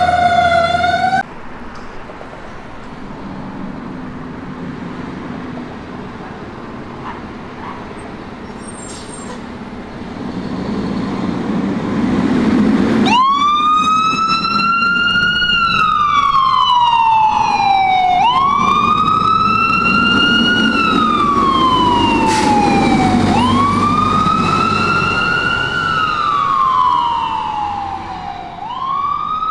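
Fire engine siren wailing: each cycle rises quickly, then falls slowly over about five seconds, repeating four times. It starts about a third of the way in, after a low engine rumble builds under street traffic.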